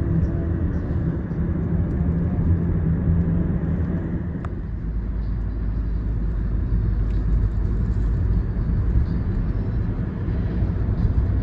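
Car driving, its engine and road noise a steady low rumble heard from inside the cabin, with a single short click about four and a half seconds in.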